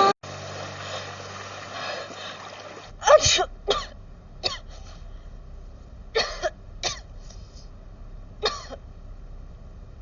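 A person with a cold sneezing and coughing in short, sharp bursts, about nine in three clusters starting about three seconds in, over a low background hum.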